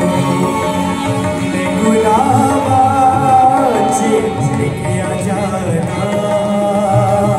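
Harmonium playing held chords, with a voice singing a wavering melodic line over it from about two seconds in.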